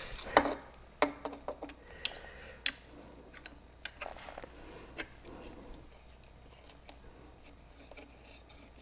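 Screwdriver, turned with an adjustable wrench on its shaft, working a freshly loosened tight vent plug out of an outboard's lower-unit gearcase: scattered light metal clicks and scrapes, most of them in the first few seconds.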